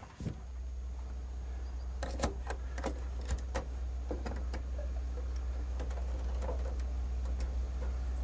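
Scattered light clicks and taps of metal hardware as an automatic greenhouse vent opener is fastened and hooked up to its rod, over a steady low hum.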